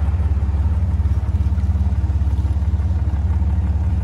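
1951 Jaguar XK120's straight-six engine idling steadily, with an even low pulsing beat.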